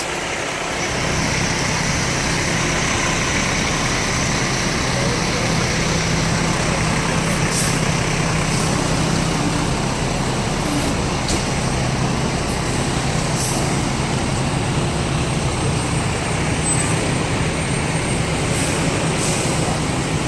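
Fire engine's diesel engine idling with a steady low hum, over city street traffic noise.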